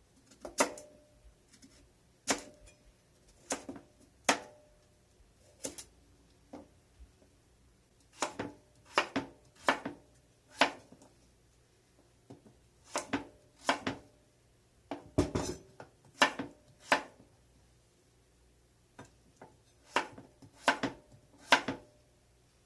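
Kitchen dishes, pots and utensils being handled: irregular clinks and knocks with short ringing, some in quick pairs, and one heavier, deeper knock about fifteen seconds in.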